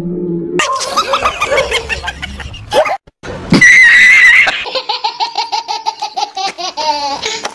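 Comedy laughter sound effect added in editing: hearty belly laughter, with a brief loud high-pitched squeal near the middle. In the last few seconds it turns to rapid, evenly spaced 'ha-ha-ha' laughing.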